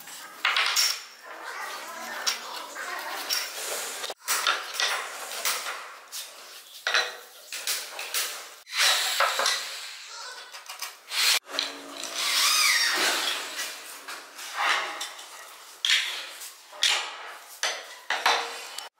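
Light clinks, taps and clatter of a metal carpenter's square and hardwood stair pieces being handled and set against the steps. The sound breaks off abruptly a few times.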